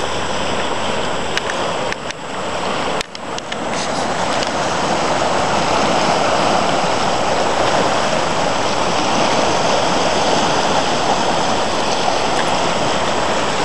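Muddy snowmelt floodwater rushing and churning along a swollen stream, a steady noise of fast water. It dips briefly about three seconds in, then runs slightly louder.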